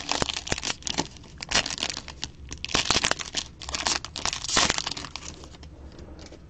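Plastic wrapping on a 2020 Topps Tier One trading-card box being torn open and crumpled by hand: irregular crinkling with several sharp rips, dying away about five seconds in.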